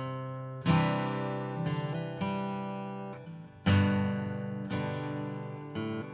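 Martin HD-28V spruce-top dreadnought acoustic guitar, on light 10–52 gauge strings, being strummed and picked. Two hard strummed chords, one about a second in and one a little past halfway, each ringing out and fading, with lighter strokes in between.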